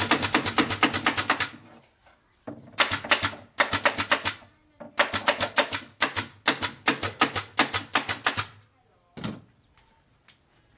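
Pneumatic nail gun firing in rapid runs of several shots a second into the particleboard panels of a subwoofer box, three runs with short pauses between, followed by a single thump about nine seconds in.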